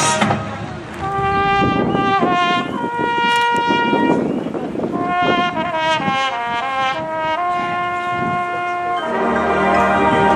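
Marching band brass playing a slow melodic phrase in held notes that step up and down in pitch, right after a loud full-band chord cuts off. About nine seconds in, the full band with low brass and sousaphones comes back in, louder.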